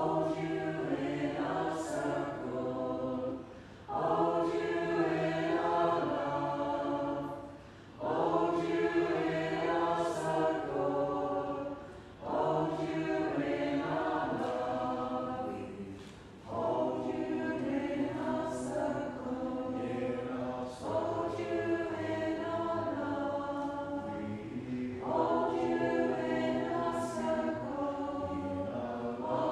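Mixed-voice community choir singing unaccompanied, in sung phrases of about four seconds with short breaks for breath between them.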